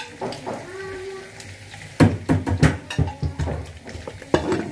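Dishes and objects clattering on a kitchen counter, with a cluster of sharp knocks about two seconds in. Near the end, a plastic water bottle is gripped and picked up.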